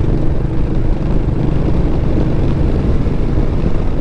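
Royal Enfield Meteor 350's single-cylinder engine running steadily while cruising at just over 40 mph in fourth gear.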